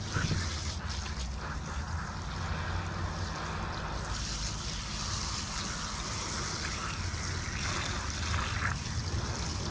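Garden hose spray nozzle spraying water over a skinned chicken carcass, the water splashing onto the carcass and a plastic truck bed liner in a steady hiss, with a steady low rumble underneath.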